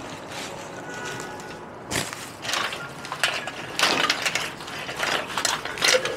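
Bubble wrap crinkling and rustling as it is spread out and smoothed by hand, quieter at first, then irregular crackles from about two seconds in.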